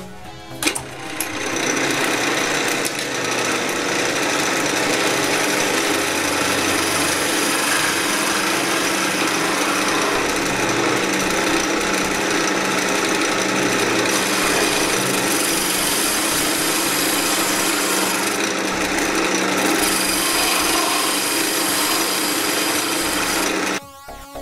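A turning tool cutting into the inside of the mouth of a dry mountain ash (rowan) vase as it spins on a wood lathe: a steady, rough cutting noise. It starts about a second in and stops shortly before the end.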